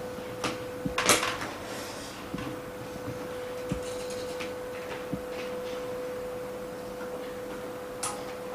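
Small scrapes and clicks of glue being worked off a phone's OLED screen by hand, irregular, with the loudest scrape about a second in, over a steady hum at one pitch.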